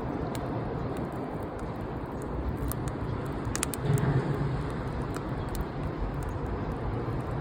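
Wood fire burning, with a steady low rush and scattered sharp crackles and pops. A briefly louder low rumble comes about four seconds in.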